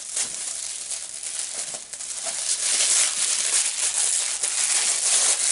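Tissue paper crinkling and rustling as a wrapped gift is handled and unwrapped, growing louder about halfway through.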